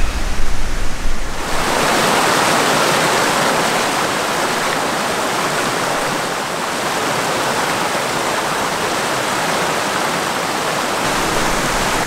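Fast-flowing rocky stream rushing and churning white over boulders. A loud, steady rush that cuts in suddenly about a second and a half in.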